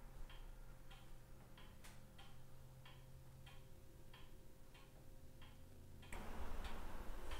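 Wall clock ticking steadily and faintly, about two ticks a second. About six seconds in, a louder hiss of background noise comes up under the ticking.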